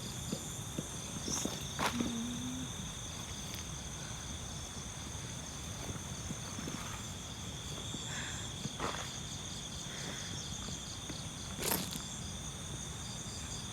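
Night chorus of crickets and other insects: several steady high-pitched trills, one of them pulsing. Under it runs a low rumble of strong wind on the microphone, and there are two sharp knocks, about 2 seconds in and near the end.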